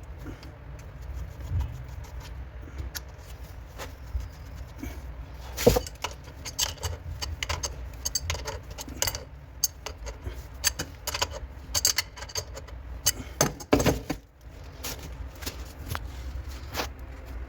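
Irregular metallic clicks and clinks of plumbing tools and fittings being handled, over a low steady hum. The clicking is densest from about a third of the way in.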